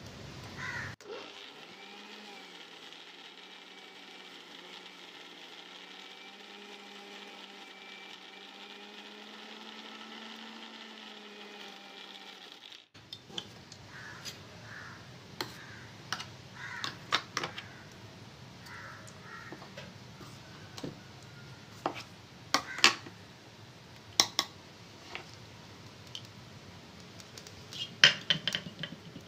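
Small mixer-grinder (mixie) motor running steadily for about twelve seconds with its lid held down, grinding cashews into a paste that has begun to release its oil; its pitch rises slightly before it cuts off abruptly. Then a spoon scrapes and clinks against the steel jar.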